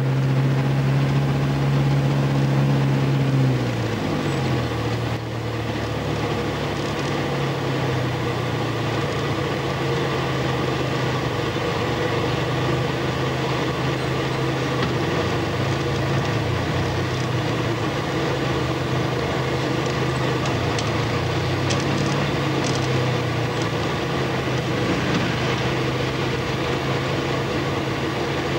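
Engine of a moving road vehicle heard from inside it: a steady drone that drops in pitch about three to four seconds in, then holds steady over road noise.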